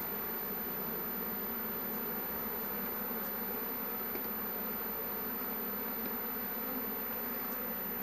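Honey bees buzzing in a steady, dense hum from an opened hive. The colony has grown angry at the disturbance.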